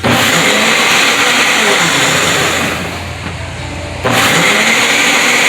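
Countertop blender motor running hard, liquefying chili peppers with vinegar into hot sauce. It jumps to full speed at the start, eases to a lower pitch and level about two and a half seconds in, then surges back to full about four seconds in.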